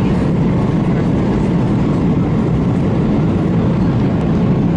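Steady low rumble of an airliner cabin in flight: constant engine and airflow noise heard from a passenger seat.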